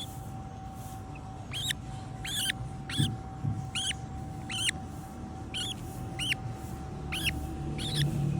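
A small animal giving short, high squeaky calls over and over, about one every half second, with a faint steady hum underneath.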